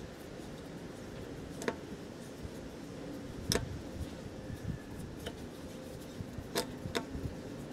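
Screwdriver unscrewing a screw from a car tyre's tread: a handful of sharp metal clicks, the loudest about halfway through, over a steady low background rumble.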